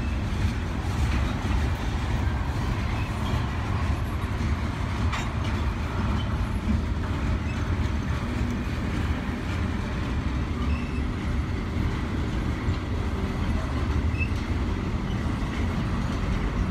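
Freight cars of a passing train rolling by: a steady rumble of steel wheels on the rails.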